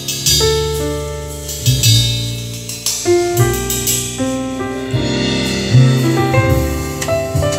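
Music with held melody notes over a strong bass line, played through a pair of vintage Diatone DS-251 three-way loudspeakers with Alnico-magnet drivers.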